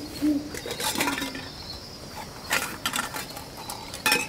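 Night ambience with a steady, high cricket chirr, and a scatter of short clicks and rattles, the loudest near the end.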